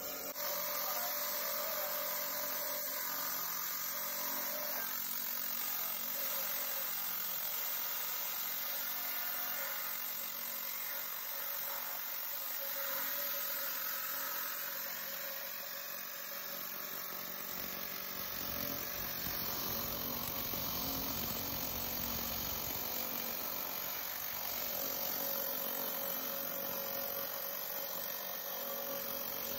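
A water-cooled 10-inch diamond rock saw running steadily as its blade cuts through a large chunk of crystal Bisbee turquoise in quartz, a continuous grinding hum. A deeper rumble joins a little past halfway.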